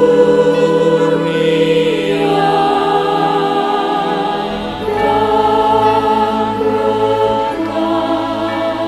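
Small mixed choir of men's and women's voices singing slowly in harmony, holding long notes and moving to new chords a few seconds apart.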